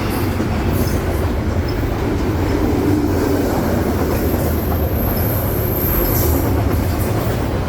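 Freight train cars rolling past close by, a loud steady rumble of steel wheels on the rails.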